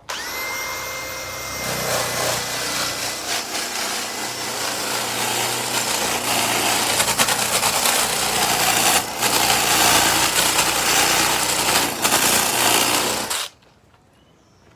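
Power tool spinning a homemade flap sander made of cut sanding-belt strips, its motor whining up to speed and then the flaps slapping and rubbing over a wooden chainsaw carving. The sanding grows louder about halfway through and stops abruptly about a second before the end.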